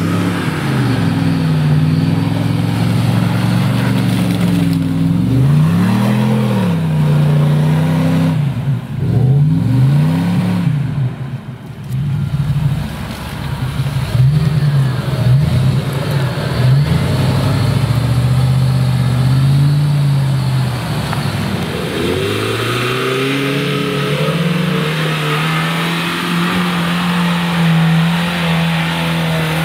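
4x4 SUV engines, a Jeep Grand Cherokee and a Lada Niva, revving hard while driving through deep mud and up a muddy slope. The engine note rises and falls again and again, turns choppy in the middle, then climbs and holds high near the end.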